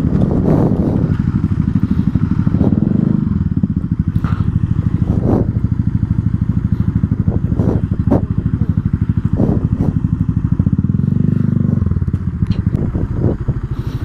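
Motorcycle engine running at low speed with a fast, even firing beat, and brief rises in revs twice. Now and then there is a short sharp knock or click.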